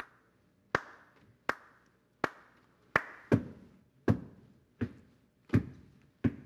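Body percussion: hand claps in a steady beat, about one every three-quarters of a second. From about three seconds in, most of the strokes carry a deeper slapping thump on the body.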